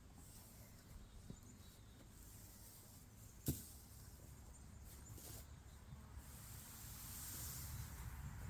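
Faint rustling of dry hay being pulled off the outside of a round bale, with one sharp knock about three and a half seconds in; the rustling swells near the end.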